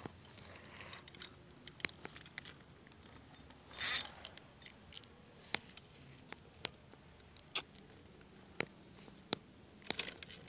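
Sharp clicks and light metallic rattles from a spinning reel and rod being handled, with single clicks about once a second and a short rustling burst about four seconds in.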